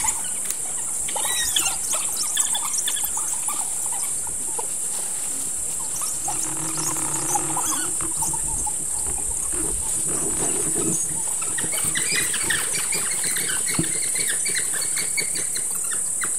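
A pack of African wild dogs twittering and squealing in quick, high chirps as they rush to and scuffle over a carcass, in flurries near the start and again in the second half. A steady high insect drone runs behind.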